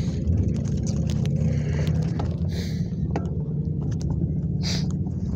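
Steady low rumble of riding a bicycle on a paved path: wind buffeting the phone's microphone and tyre noise, with scattered small clicks and rattles.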